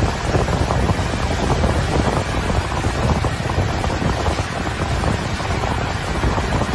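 Steady wind buffeting the microphone over the rushing noise of a boat moving fast across the water.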